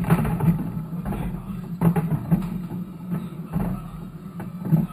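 Pool balls rolling across the slate table after a shot: a low rumble carried through the table, with a few sharp clicks of balls striking each other or the cushions.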